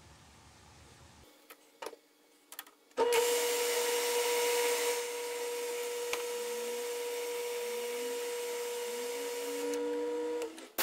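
Metal lathe spindle and drive started and run with no cutting, a steady whine over a hiss, stopping just before the end. A few faint clicks come before it starts.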